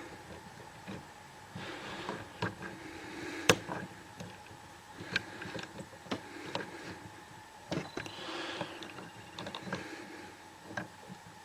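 Irregular light clicks and taps of a disc detainer pick turning the discs inside a clear plastic disc detainer training lock, with a sharper click about a third of the way in and another about two-thirds in.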